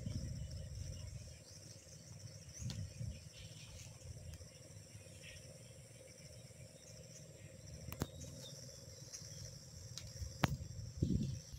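Steady, high, pulsing insect chorus, with a low rumble underneath and a couple of sharp clicks in the second half.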